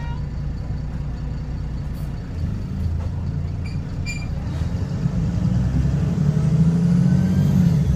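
VDL SB200 single-decker bus (Wright Pulsar), heard from inside, pulling away: the diesel engine's low drone grows louder from about two seconds in, then drops suddenly near the end, as at an up-change of its Voith automatic gearbox. The bus has a blown exhaust, though it does not stand out from inside.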